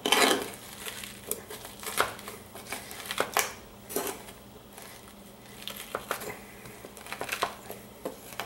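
Garlic cloves being crushed into coarse kosher salt under the flat of a chef's knife on a wooden cutting board, mashing them into a paste: irregular crunches and clicks about once a second.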